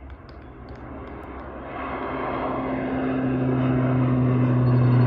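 Twin-engine turboprop plane taking off and climbing out: a steady engine and propeller drone with low steady hums, growing louder throughout as it comes closer, a higher hum joining about two seconds in.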